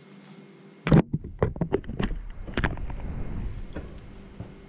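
Thick fishing leader line being pulled through a loop by hand: a sudden burst of rubbing and rustling about a second in, then a run of sharp knocks and low rumbling handling noise over the next two seconds that fades away.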